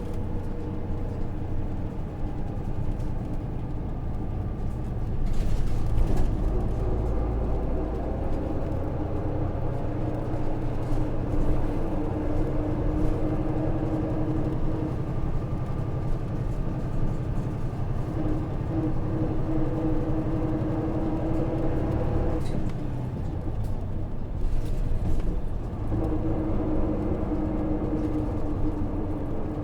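Hino KV234 city bus with its 6HK1 straight-six diesel engine running under way, heard from inside the cabin. There is a steady low rumble, and the engine note shifts and drops a few times, near the start, about two thirds through and again shortly after.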